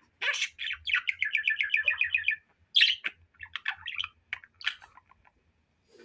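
Budgerigar chattering: a fast, even trill lasting about two seconds, then scattered short chirps that die away near the end.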